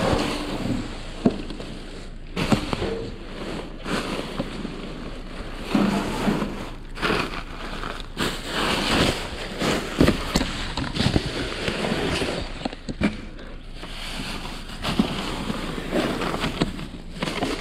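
Clear plastic trash bags crinkling and rustling as they are handled and pulled open, with sharp crackles and knocks throughout.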